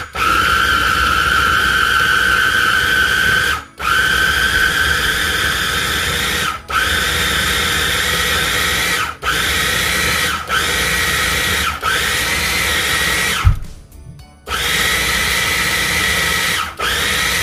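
KitchenAid 3.5-cup mini food processor pulsed on its chop setting, grinding spices with oil and water into curry paste. The motor whines in spells of one to four seconds, stopping briefly between presses, and the pitch rises as it spins up again. About two-thirds of the way through there is a single thump and a gap of about a second.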